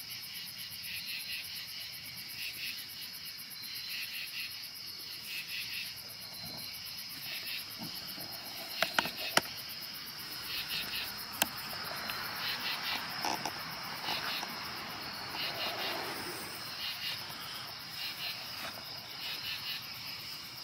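Night chorus of insects: a steady high cricket trill with rhythmic pulsed chirps repeating about once a second. A few sharp clicks stand out about halfway through.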